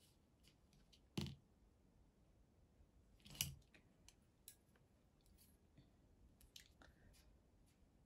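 Near silence: room tone with a few faint short clicks, the clearest about a second in and again a little over three seconds in.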